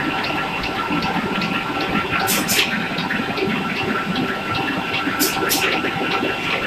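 Machinery running with an even, rhythmic ticking and a steady whine, broken by two pairs of short hisses, about two and a half seconds in and again around five seconds in.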